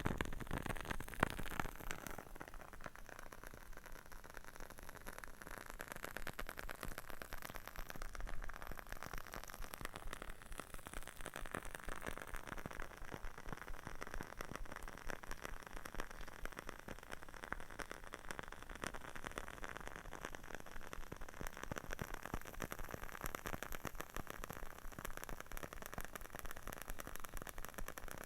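Wooden-wick candle burning with a steady fine crackling, many rapid small pops, with a few louder knocks in the first two seconds.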